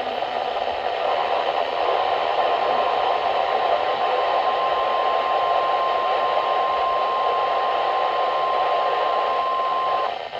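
NOAA Weather Radio warning alarm tone: a single steady tone near 1 kHz held for about nine seconds over heavy radio static hiss, cutting off shortly before the end. The tone signals that a warning broadcast follows.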